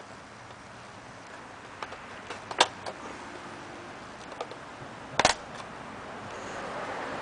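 Hands handling a nitro RC truck's plastic body and parts: a few scattered sharp clicks and knocks, the loudest about two and a half seconds in and a quick double click about five seconds in.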